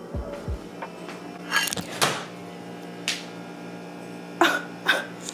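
A slice of avocado toast with scrambled egg slides off a plate and lands on a tile floor, with several sharp knocks and clatters of the landing and the plate in hand. A steady electrical hum runs underneath.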